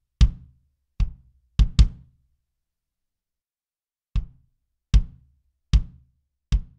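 Sampled drum hits, each with a sharp attack and a deep low thud that dies away quickly: four in the first two seconds, a pause of about two seconds, then four more at an even pace.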